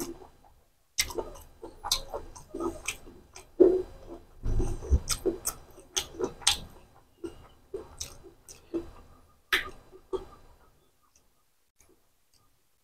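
Wet chewing with lip smacks and mouth clicks over a mouthful of rice and chicken liver curry, along with the squish of rice being mixed by hand on a steel plate; the sounds die away about eleven seconds in.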